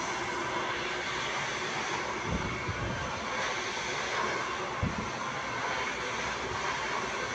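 Handheld hair dryer blowing steadily, with two brief low thumps about two and a half and five seconds in.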